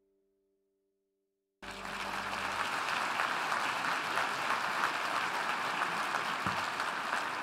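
Audience applause, a dense steady clapping that cuts in abruptly about one and a half seconds in, after the last faint notes of soft music die away into silence.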